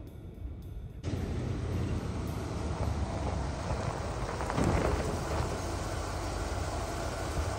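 1986 Ford F-150 V8 engine running as the pickup rolls up over a dirt track, loudest about halfway through as it reaches the camera, then settling to a steady idle.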